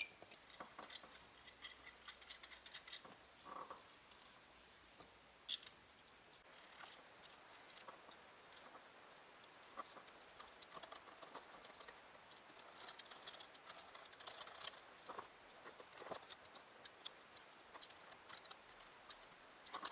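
Faint runs of small, quick clicks and ticks from metal parts and hand tools being worked on a steering wheel and its quick-release hub, coming in several bursts.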